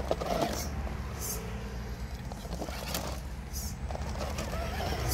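RC rock crawler (Axial SCX10 Deadbolt) climbing over rough rock: its electric motor and drivetrain run under a steady low hum, with scattered scrapes and clicks of the tyres and chassis on the stone.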